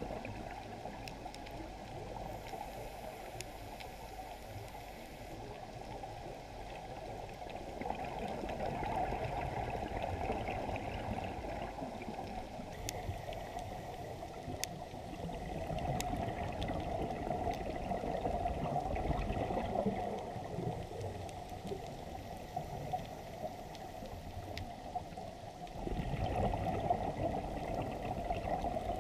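Underwater sound of a scuba dive heard through a camera housing: a steady watery rush that swells into louder bubbling every several seconds, typical of a diver's exhaled regulator bubbles.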